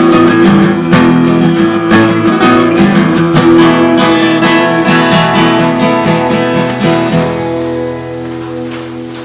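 Acoustic guitar strumming the closing bars of a song, then a final chord ringing out and fading from about seven seconds in.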